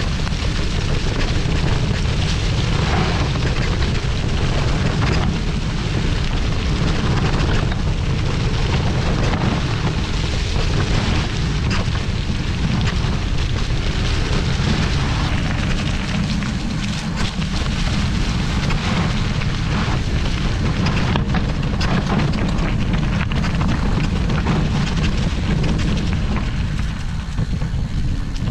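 Kona Hei Hei mountain bike's tyres rolling over dry fallen leaves and dirt trail, with a steady crackle of leaves throughout. Wind rumbles steadily on the action camera's microphone underneath.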